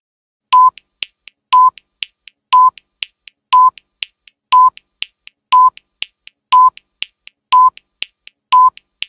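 Countdown timer sound effect: a short electronic beep once a second, nine beeps in all, with two faint ticks between each beep.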